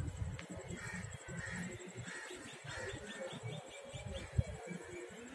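A bird chirping a rapid run of short high notes, a little over two seconds in, over a steady low rumble, with a single sharp knock about four seconds in.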